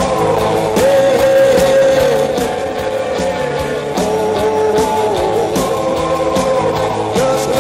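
Rock and roll music: a lead guitar line that bends up and down over a steady drum beat.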